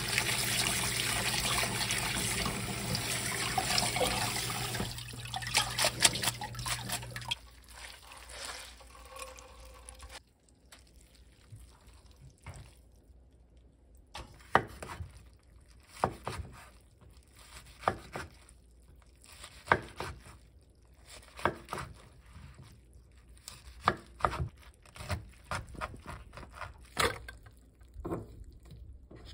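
Tap water running onto fresh seaweed in a stainless steel colander, stopping about 7 seconds in. Later comes a series of separate sharp knocks about once a second, a knife cutting the seaweed on a wooden cutting board.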